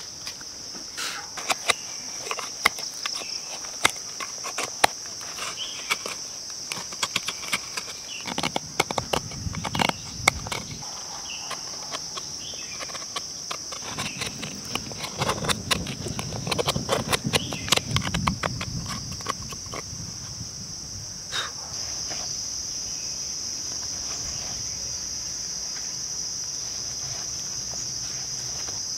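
A knife scraping and knocking as it carves out the inside of a small wooden bowl cut from a log section, in many short strokes, with heavier scraping around the middle; the carving stops about two-thirds through. Under it, a steady high insect drone that gets louder at about that point and then carries on alone.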